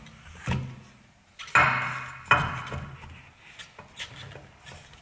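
Metal clanks as a steering knuckle is worked onto the bottom of a car's front shock absorber strut: a knock, then two louder ringing clanks about a second and a half and two seconds in, followed by a few lighter clicks.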